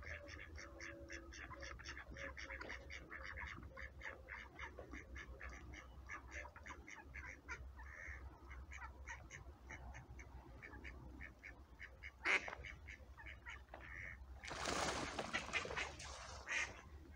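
Ducks quacking in a rapid run of short calls, several a second. About twelve seconds in there is a sharp knock, and near the end a louder rush of noise lasts about two seconds.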